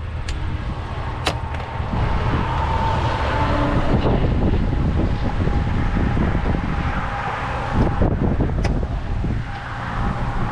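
Wind buffeting the microphone as a steady low rumble, with a few sharp clicks and knocks over it.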